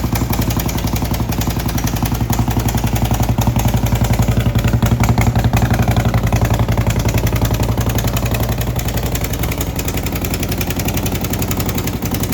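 2011 Harley-Davidson Road Glide Ultra's Twin Cam V-twin engine idling with a loud, rhythmic mechanical noise. The noise is the sign of worn and broken internal engine parts.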